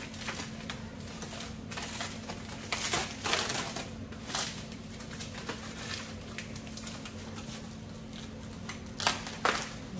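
Glassware and kitchen items being handled and unpacked: rustling of wrapping with scattered light knocks and clinks, the sharpest a little after the middle and near the end, over a steady low hum.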